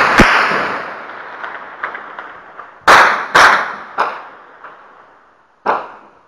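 Heavy gunfire. A dense rattle of shots fades away over the first second or so. Then single loud shots ring out about three seconds in, three within about a second, and one more near the end, each echoing as it dies away.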